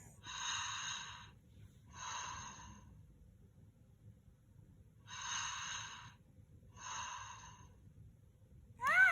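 Little Live Pets plush bear toy playing its recorded snoring: four soft, hissy snoring breaths in two pairs with a pause between the pairs. Near the end comes a short, louder, high rising squeak from the toy.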